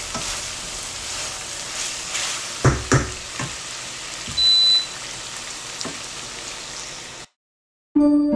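Food frying in a pan, a steady sizzle with crackles, with a couple of utensil knocks against the pan about three seconds in and a short high beep around the middle. The sizzle then cuts off, and soft piano music begins near the end.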